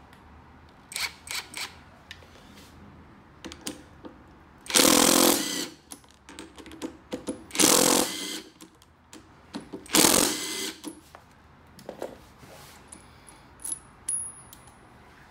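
Cordless impact driver with a socket, three short runs of about a second each as it loosens the bolts of a steel mould block. Between the runs come clicks and light metal clatter of the tool and sockets being handled.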